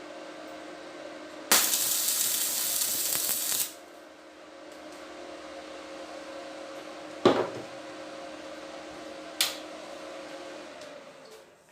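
A small electric motor, the homemade bench drill press's, runs with a steady hum. A harsh, hissing burst of about two seconds comes early, two sharp knocks follow later, and the hum dies away near the end.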